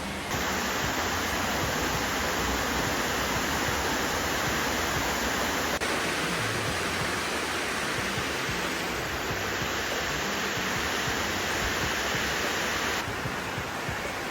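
Heavy rain pouring down in a storm, a dense steady hiss.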